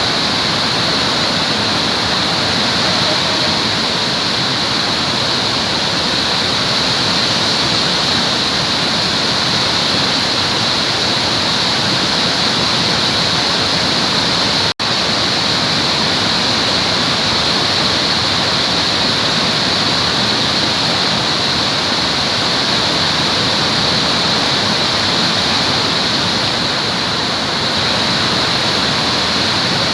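Waterfall: a steady, even rush of falling water, with a momentary dropout about halfway through.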